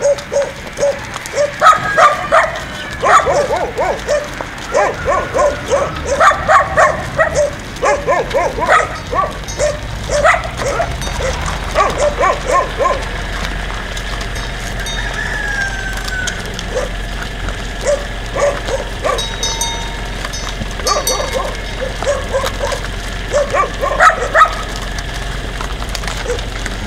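Dog barking in many short repeated barks, thick through the first half, thinning out in the middle and coming back briefly near the end.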